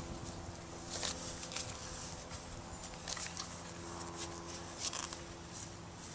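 Light scuffs and clicks as a garden rake is brought over and laid down on the bed of loose soil, over a faint steady buzzing hum.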